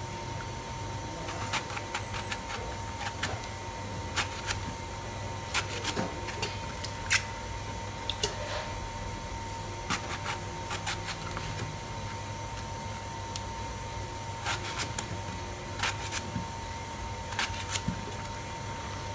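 Irregular sharp clicks and light knocks as an eggplant is cut in the hand with a sharp kitchen knife, the chunks dropping into a stainless steel bowl. A steady faint hum runs underneath.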